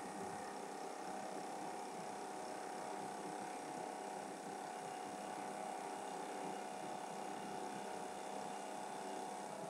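TRAK DPM CNC bed mill face milling an aluminum block with a 1-inch end mill: a steady running and cutting tone as the table feeds the part under the spinning cutter.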